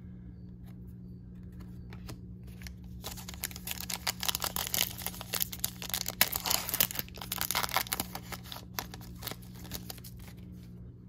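A trading card pack's wrapper being torn open and crinkled by hand, a dense crackle that starts about three seconds in and dies away about nine seconds in.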